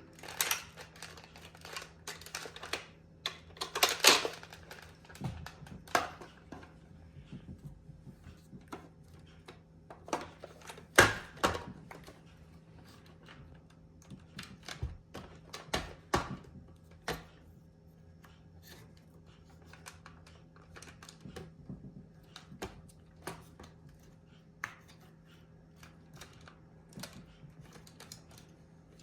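Irregular plastic clicks and knocks of a toy shotgun being loaded and worked by hand, with a few louder clacks among them.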